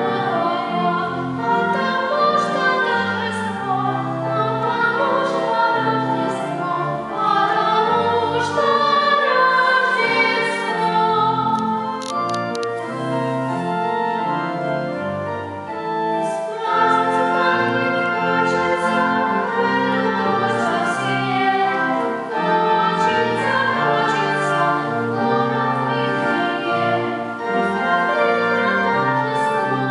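A girl and a boy singing a classical duet in sustained, vibrato-rich lines, accompanied by an organ.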